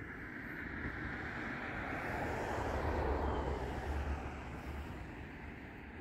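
A vehicle passing by: a steady noise with a low rumble that swells to its loudest about three seconds in, then fades.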